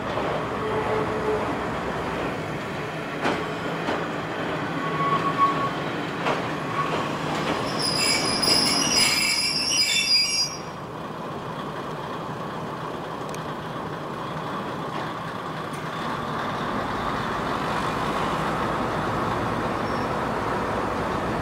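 Kominato Railway diesel railcar train running slowly past, with a few sharp clicks from the wheels on rail joints. A loud high-pitched wheel squeal comes about eight seconds in and cuts off suddenly about two seconds later, leaving a steady running rumble.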